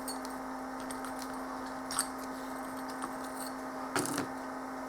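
A few light metallic clicks and clinks as steel parts of a pulley puller are handled, the loudest cluster near the end, over a steady hum.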